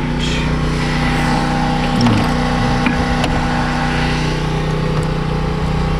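Steady drone of a running machine with a constant low hum, with a few light clicks about two to three seconds in.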